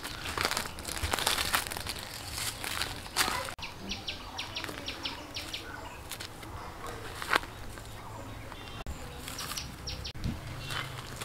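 Footsteps crunching on dry leaves and rustling through undergrowth as fallen drumstick pods are gathered from the ground, with crackling clicks that are thickest in the first few seconds. A bird chirps in quick runs twice, about four seconds in and near the end.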